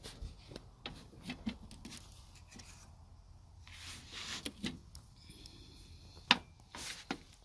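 Scattered light clicks and rubbing from hands handling things, with one sharp click a little over six seconds in.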